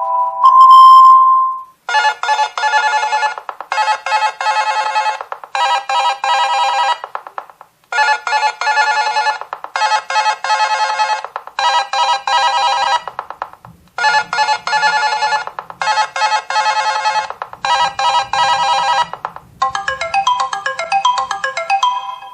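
Nokia 2.2 ringtones. After the last held note of one tone, a rapid trilling ring plays in bursts of about a second and a half, three bursts to a round, three rounds in all. Near the end a different, melodic ringtone begins.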